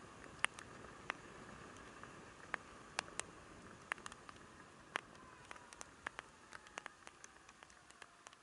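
Raindrops tapping irregularly on the camera housing, over a faint steady hiss; the taps come closer together near the end.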